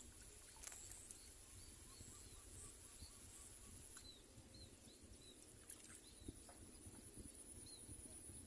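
Faint outdoor ambience: a steady high-pitched insect drone with small, repeated chirps over it and a few soft clicks.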